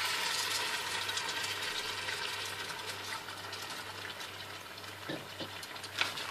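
Tomatoes, lentils and spices sizzling and crackling in a stainless steel pot, the sizzle fading as the freshly poured coconut milk cools the pan. Near the end come a couple of light knocks as the wooden spoon is laid across the pot's rim.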